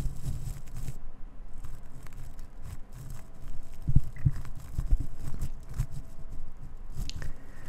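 Microphone rubbed against a man's beard stubble: scratchy rustling with irregular low thumps of handling noise.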